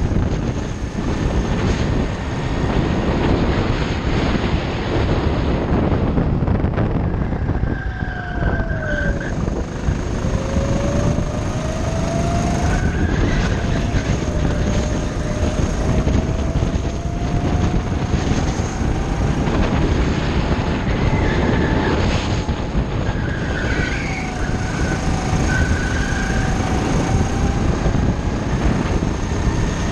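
A go-kart engine runs at speed, its pitch sliding up and down as the kart slows for corners and accelerates out of them, over a heavy steady rumble.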